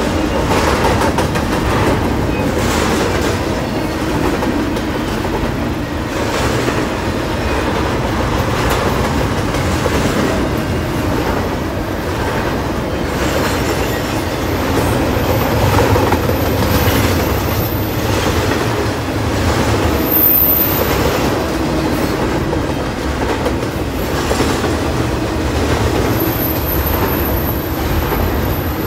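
Double-stack intermodal freight train rolling past: a steady rumble and rattle of the container cars, with the wheels clacking over rail joints every couple of seconds.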